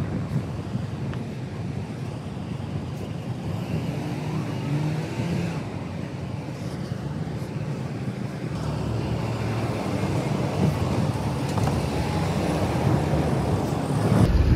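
Road traffic noise: cars running steadily on the roads nearby, getting louder over the last few seconds.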